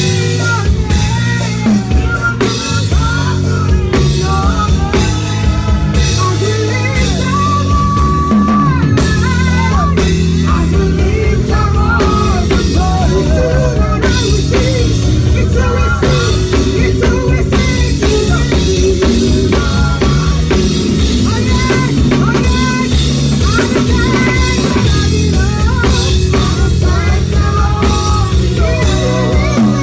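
A drum kit played close up in live worship music, with rapid strokes and cymbals over a steady bass line and wavering melodic lines, singing among them.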